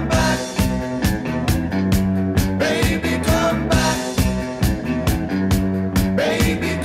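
Music with a steady drum beat and a bass line.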